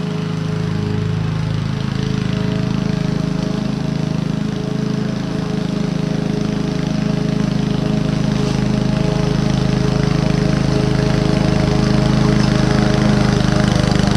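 Honda self-propelled lawn mower's four-stroke engine running steadily while mulching grass, gradually growing louder as the mower comes closer.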